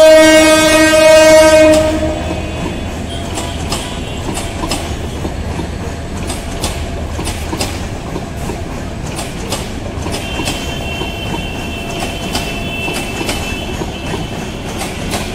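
Train horn sounding one long blast of about two seconds, the loudest part. Passenger coaches then roll past with a steady rumble and the clickety-clack of wheels over rail joints. A faint high whine comes in for a few seconds past the middle.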